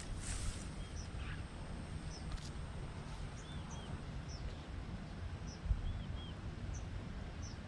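A bird calling repeatedly: short paired chirps that rise and fall, about every two and a half seconds, with brief higher notes in between, over a steady low rumble.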